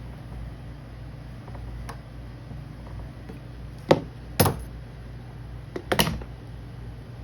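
A few sharp knocks of metal scissors and tools handled against a work board: four in two pairs about two seconds apart, the first pair loudest, over a low steady hum.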